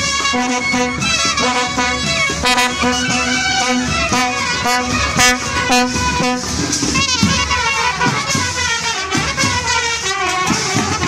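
A marching brass band plays a tune together on trumpets, trombones and baritone horns, with drum beats underneath.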